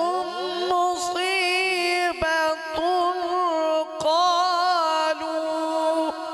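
A man reciting the Quran in a slow, melodic tilawat style, drawing out long held notes with wavering ornaments and swooping rises, amplified through a microphone.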